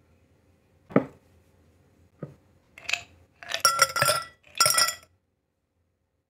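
A drinking glass set down on a table with a knock, then ice cubes dropped into the tall glass, clinking and rattling against it in a few quick clatters over about two seconds.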